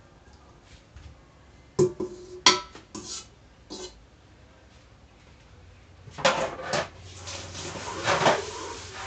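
A steel pot clanking and scraping against the rim of a clay mortar as its contents are tipped and scraped out: several sharp knocks about two seconds in and again around six seconds in. Background music comes in near the end.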